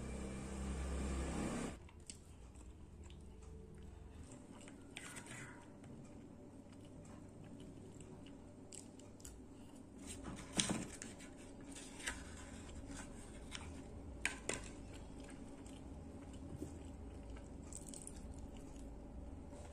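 Quiet eating sounds: chewing, and a spoon scraping and clicking against an aluminium foil cup several times in the second half. A steady rushing noise in the first two seconds cuts off suddenly.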